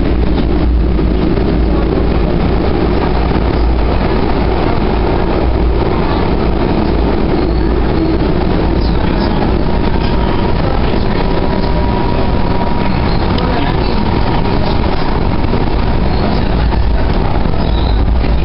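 C-Train light-rail car running along the track, heard from inside the car: a steady, loud rumble of wheels and car body, with a thin steady tone joining for a few seconds past the middle.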